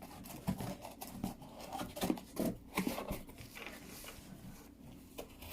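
Irregular rustling, scratching and tapping as a young racing pigeon is handled and lifted out of its shipping box.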